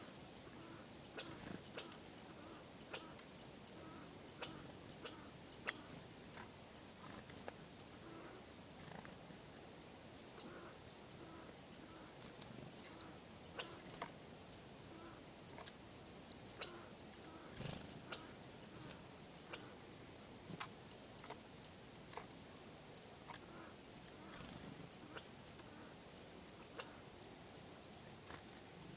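Black-capped chickadee giving short, thin, very high-pitched call notes, repeated one or two a second with a brief pause about a third of the way through.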